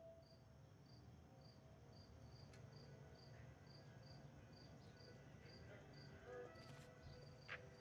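Faint cricket chirping, a steady pulse of about two to three short high chirps a second, over a low outdoor rumble.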